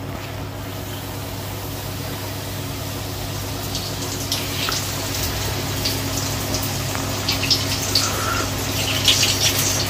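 Sambusas deep-frying in hot oil in a small pan: a steady sizzle with sharp spattering crackles now and then, most of them near the end, over a steady low hum.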